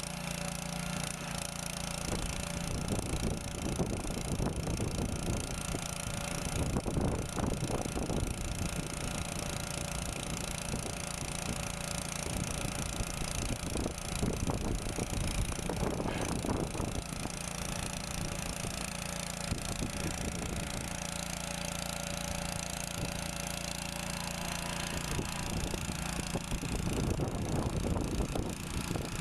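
Small 10 HP gasoline engine of a hydraulic earth auger running steadily, with a few stretches of rougher, noisier sound over the engine note.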